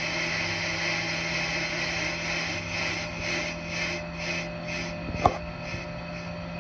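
ProCut on-car brake lathe turning a brake rotor while its cutter bits machine both faces, silencing pads clipped on: a steady motor hum under a hissing cutting noise that weakens over the second half, with a faint regular pulsing. A sharp click about five seconds in.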